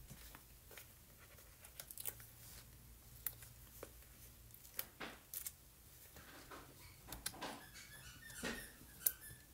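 Faint, scattered clicks and light taps of foam adhesive dimensionals being peeled off their backing sheet and pressed onto a paper card panel.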